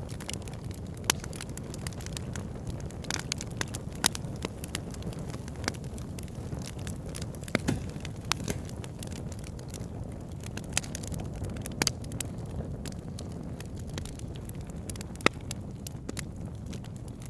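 Wood fire burning with a steady low rumble and irregular sharp crackles and pops, a few of them louder than the rest.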